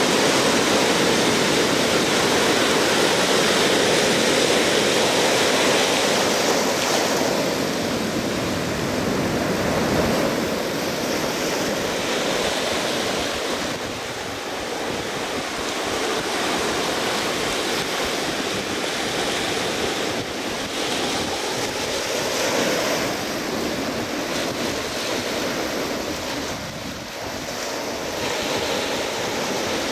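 Pacific Ocean surf breaking and washing up a sandy beach, a steady rush that swells and eases as the waves come in, with wind blowing across the microphone.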